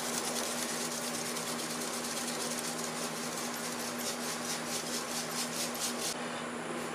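Green molding sand being shaken through a hand riddle: a rhythmic hissing rattle of sand and wire screen at about four shakes a second, stopping about six seconds in. A steady hum runs underneath.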